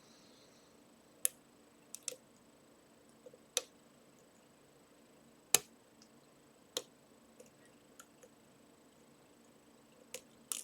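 Lock pick and tension wrench working the pins of a Trioving 55## pin-tumbler lock: about ten sharp metallic clicks at uneven intervals, the loudest about five and a half seconds in.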